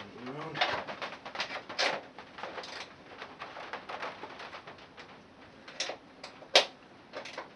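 Irregular metallic clicks and knocks of a wrench working at a stubborn bolt on a ride-on mower's metal dash, with a short rising tone near the start and one sharper knock near the end.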